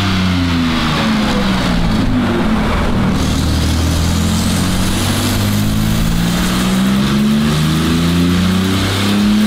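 Porsche 997 Turbo S twin-turbo flat-six with a Capristo exhaust on a chassis dyno. Its pitch falls over the first few seconds as it coasts down after a full-power pull, with the dyno reading negative power during the roll-out. It then climbs steadily again as the engine is brought back up, with a faint high whine rising in the middle.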